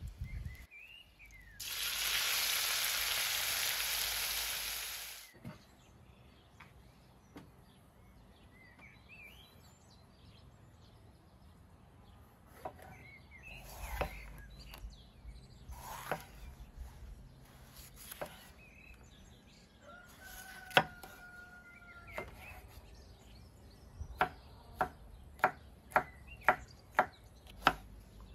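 Cooking oil sizzling loudly on a hot steel disc pan for a few seconds, then cutting off abruptly. After that, a knife cuts a bell pepper on a wooden board: scattered slicing strokes, then steady dicing chops about two a second near the end, with birds calling in the background.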